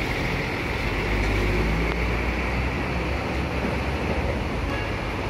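Diesel coach bus engine running low as the bus pulls slowly past, its rumble swelling about a second in and easing off near the end, over the steady hiss of heavy rain.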